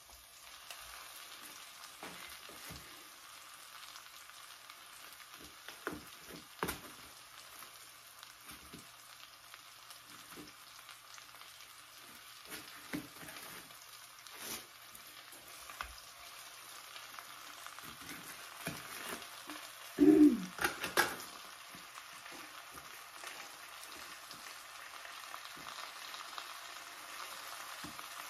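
Onions and thin frozen beef slices sizzling in oil in a skillet, a steady frying hiss, with scattered small clicks and rustles as the slices are peeled apart and laid in the pan. A couple of louder knocks come about twenty seconds in.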